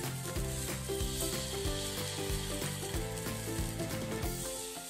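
Rava (semolina) batter sizzling in hot oil as spoonfuls are dropped into the cups of an appe pan, with background music playing over it.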